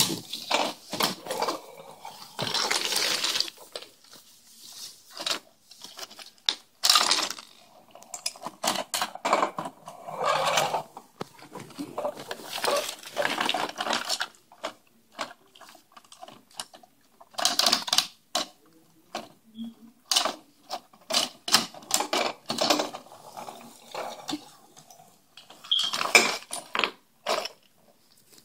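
Wooden toy blocks and small plastic toy pieces clattering and scraping on a wooden floor as a plastic toy front loader is pushed into them and scoops them, with many sharp knocks in quick runs.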